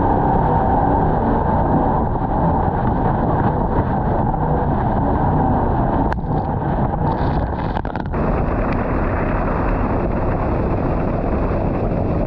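Jet boat running under way, a steady, loud mix of engine and rushing water, with wind buffeting the microphone.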